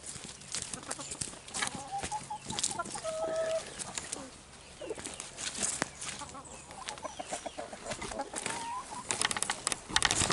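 Chickens clucking in short pitched calls, over the crunch of footsteps on dry leaves and soil. The footsteps get louder and quicker near the end.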